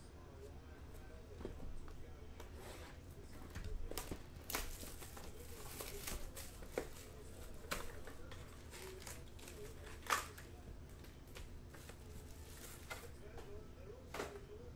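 Foil-wrapped trading-card packs and their cardboard box being handled: packs pulled out of the box and stacked, with crinkling of the foil and scattered sharp taps and clicks, the loudest about ten seconds in.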